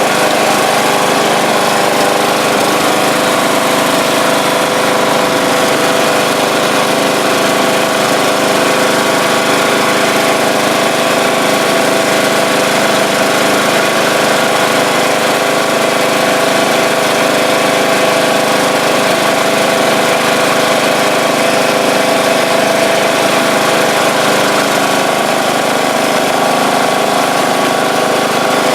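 John Deere LA125 lawn tractor's single-cylinder Intek engine running steadily at one constant speed. It is running right now that the sheared flywheel key behind its lean, erratic running has been dealt with.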